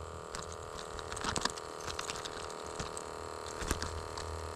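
A steady electric hum with a few light clicks and faint water sounds scattered through it.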